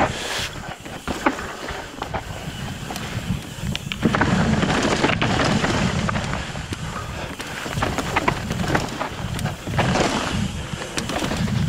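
Mountain bike rolling over rock, with wind buffeting the microphone and scattered clicks and rattles from the bike; it gets louder about four seconds in.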